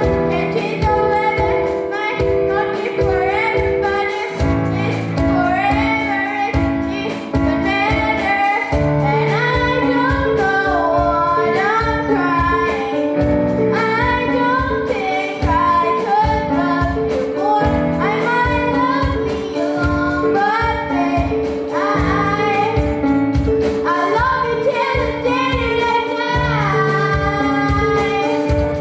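A youth band playing live, a young girl singing the lead melody over sustained chords and a steady drum beat.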